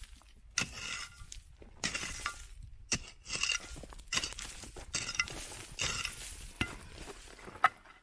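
A hand digging tool striking and scraping into stony ground full of quartz crystal fragments, with glassy clinks as the pieces knock together. It goes at roughly one stroke a second, each stroke trailed by a short rattle, and a sharp clink near the end is the loudest.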